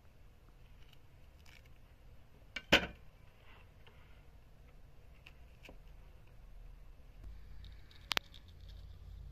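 Small kitchen knife cutting and trimming a green onion by hand: faint scattered cuts and scrapes, with one sharp click about three seconds in and a smaller one near the end.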